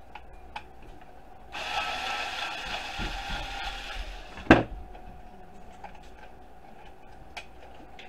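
Cordless electric screwdriver whirring for about three seconds as it backs a screw out of a plastic charging-base housing. It stops with a single sharp knock, the loudest sound, followed by a few light handling clicks.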